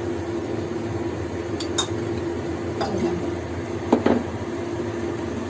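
A few light clinks and knocks of a metal pan or utensil on a gas stove, three short ones about a second apart, the last the loudest, over a steady background hum.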